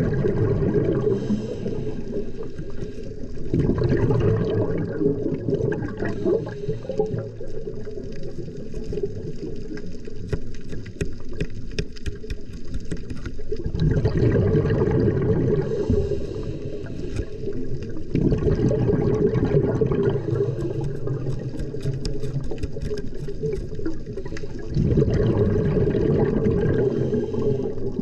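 A diver's exhaled air bubbles rumble and gurgle underwater in bursts lasting a few seconds, with quieter breaks between breaths. Faint scattered clicking runs through the middle stretch.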